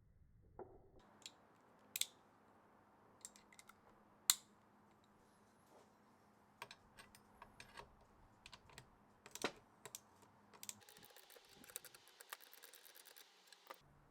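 Scattered light clicks and taps of small metal parts and hand tools being handled, a few of them sharper knocks, then a quick run of rapid ticks over the last few seconds.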